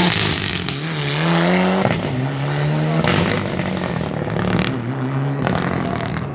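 Rally car engine accelerating hard through the gears, its pitch climbing and then dropping at each upshift, with a few sharp cracks at the shifts.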